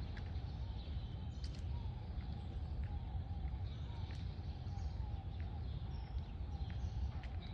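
Outdoor park ambience: a steady low rumble throughout, with faint bird chirps and calls scattered over it.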